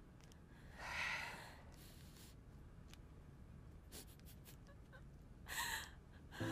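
A young woman breathing out audibly twice, each breath under a second long, about a second in and again near the end, over faint room tone.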